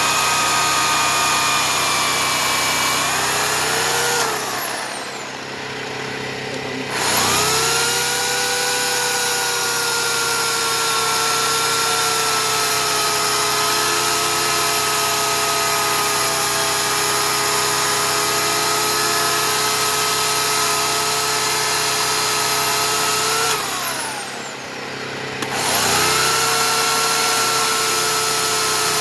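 Oregon CS 1500 electric chainsaw motor running at speed with a steady high whine while sawing wood. Twice, about four seconds in and again some twenty seconds later, the trigger is let off: the motor winds down in pitch for a couple of seconds, then spins back up to full speed. A steady lower hum continues underneath.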